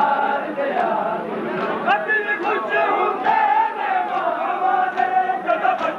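A large crowd of men chanting a noha, a Shia lament, in unison, with long held notes. Sharp slaps land roughly once a second, the rhythm of chest-beating (matam).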